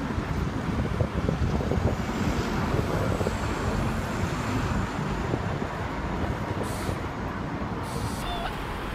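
City road traffic: motor vehicles passing close by, a steady low rumble.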